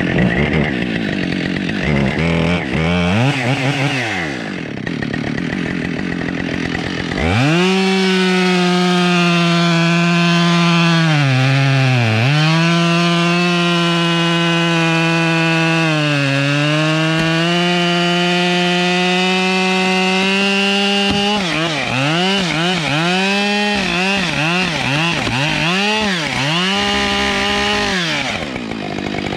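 Husqvarna 572XP two-stroke chainsaw cutting through a thick beech trunk. For the first seven seconds or so it runs at lower, uneven revs with a couple of throttle blips. It then goes to full throttle in the cut, its pitch sagging twice as the chain loads up. Near the end the throttle is worked rapidly up and down.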